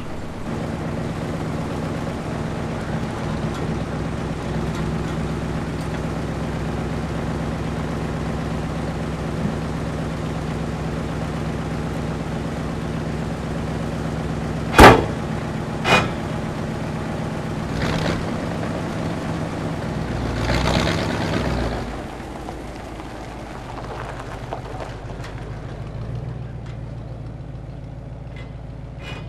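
Old pickup truck's engine idling steadily. About halfway through, a door slams hard, followed a second later by a lighter knock. A noisier rush comes a few seconds later, and then the engine note drops lower and quieter.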